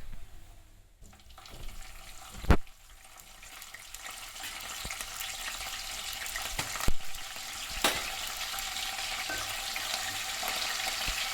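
Cumin seeds frying in hot oil in a wide pan, a steady sizzle that grows louder. A few sharp knocks cut through it, the loudest about two and a half seconds in.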